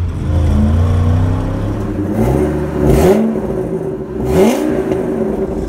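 Pickup truck engine heard through its dual exhaust, running steadily, then revved sharply twice, about halfway through and again a second and a half later, its pitch sweeping up each time.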